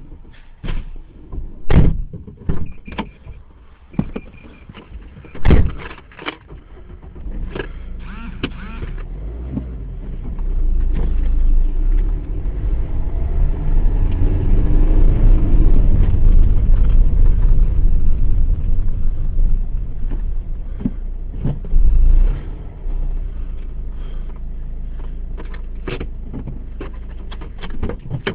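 A road vehicle passes close by: its noise swells over several seconds, stays loud, then fades away. Before it comes a series of sharp knocks and clicks, and a few more follow as it fades.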